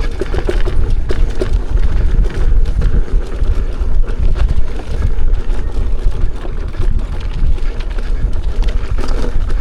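Ride noise from an electric unicycle going down a rough dirt trail. Wind buffets the microphone with a heavy rumble, and frequent knocks and rattles come from bumps along the ground.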